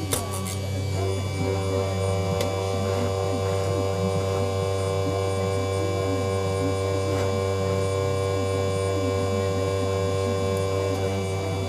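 Electric chain-sharpener grinder motor running steadily with a hum, the wheel spinning without grinding.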